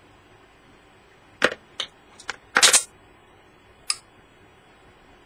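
Sharp clicks and a short rattle of small metal parts being handled on a loudspeaker's magnet assembly: a few clicks about a second and a half in, a brief clatter just after, and one more click near four seconds.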